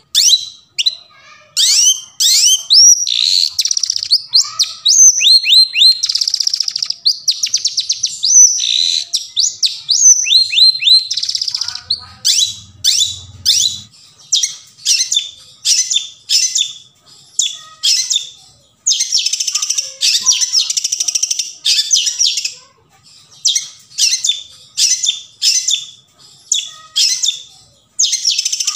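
Long-tailed shrike (cendet) singing: rapid, varied phrases of sharp chirps and quick sweeping notes, broken by harsh, scratchy chattering bursts, with short pauses between phrases.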